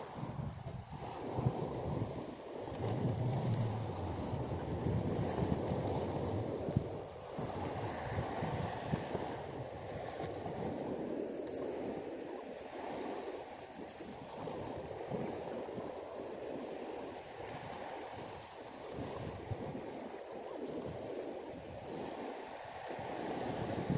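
Wind and choppy sea water at the shoreline, a fluctuating rumbling noise on the microphone, with a steady high-pitched insect chirring above it.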